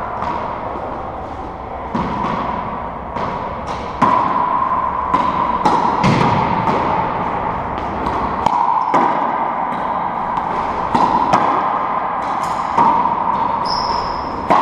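Racquetball rally in an enclosed court: the rubber ball smacks off racquets, walls and the hardwood floor in sharp, echoing hits, irregularly one or two a second. A steady hum runs underneath, and a short high squeak, likely a shoe on the floor, comes near the end.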